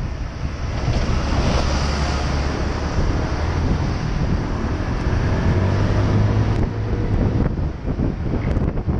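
Wind rushing over the microphone of a Honda PCX 125 scooter on the move, with the scooter's single-cylinder engine running low underneath and its note shifting about halfway through.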